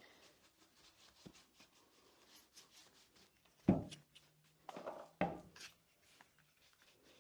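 Mostly quiet, with a few knocks and clatters of objects being handled, bunched about halfway through.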